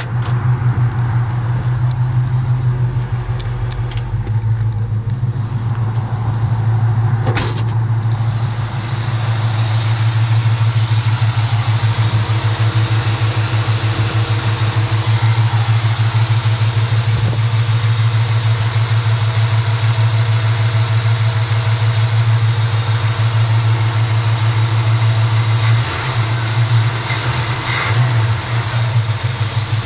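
Carbureted 350 small-block Chevrolet V8 in a custom 1952 Chevrolet 3100 pickup, idling steadily with an even, pulsing exhaust beat.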